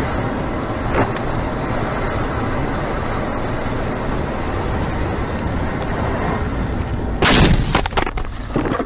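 Steady road and engine noise inside a moving car, then about seven seconds in a sudden loud crash: a burst of impact noise followed by several sharp bangs over about a second, a car collision.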